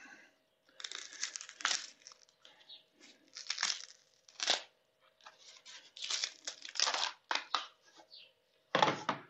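Cast polyurethane foam part being peeled out of a 3D-printed PLA mold: irregular tearing and crackling as the foam pulls free from the mold walls it has stuck to despite the wax release, with a louder burst near the end.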